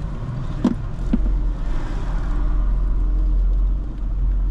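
Police car driving, heard from inside the cabin: a steady low engine and road rumble, with two short clicks about a second in.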